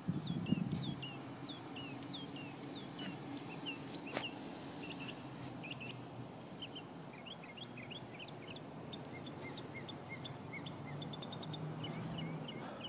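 A bird chirping over and over, short falling notes about twice a second, changing after about six seconds to quicker, higher chirps and short trills. A low steady hum runs underneath, with a brief rustle at the start and a single sharp click about four seconds in.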